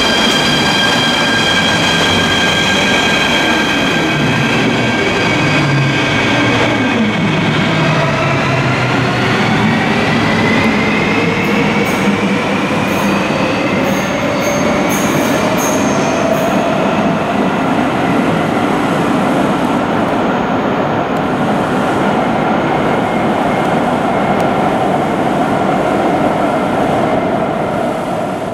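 Athens Metro train pulling out of an underground station: the electric traction motors whine upward in pitch as it accelerates away, over a steady rumble of wheels on rail.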